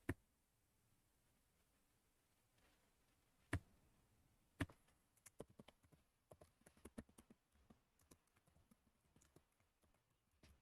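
Three separate mouse clicks, then a run of quick, irregular computer keyboard keystrokes through the second half.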